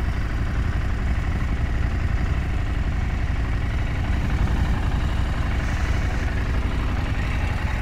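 Husqvarna Norden 901's parallel-twin engine running steadily, a low even rumble with no revving.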